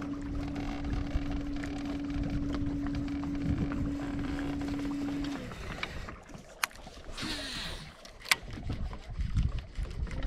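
Bass boat's electric trolling motor whining steadily over a low rumble, then shut off about five seconds in, its pitch sliding down as it stops. Two sharp clicks follow in the quieter second half.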